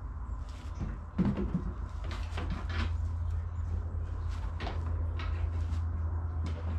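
Scattered clunks, knocks and rattles of a snowmobile's rubber track and aluminium rear-suspension rails being shifted and leaned on during a track change, over a steady low hum.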